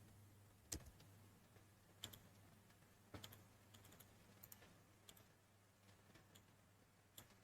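Near silence broken by a few faint, isolated computer keyboard clicks, spaced irregularly about a second or more apart, over a faint low hum.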